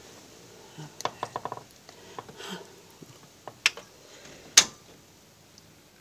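Virginia opossum chewing food in a run of quick crunching clicks about a second in. Two sharper cracks follow, the louder one about four and a half seconds in.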